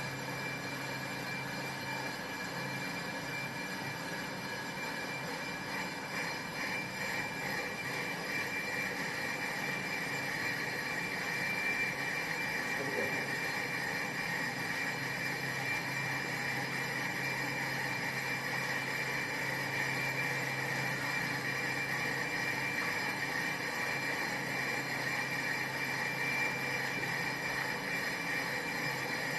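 Brake drum and disc lathe running steadily, with a high whine that grows stronger after about six seconds.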